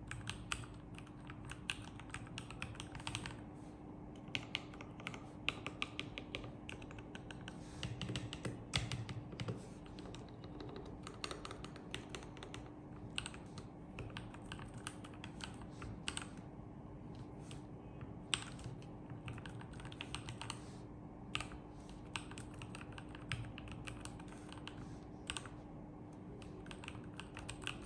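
Typing on a Marsback 84-key mechanical keyboard: a steady run of irregular key clicks, with some strokes louder than the rest.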